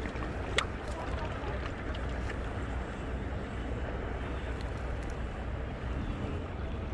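Steady low rumble of wind and harbour noise, with one sharp click a little over half a second in.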